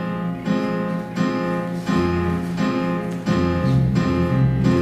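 Instrumental music: a strummed acoustic guitar playing repeated chords with a steady pulse, the accompaniment to a song in a stage musical.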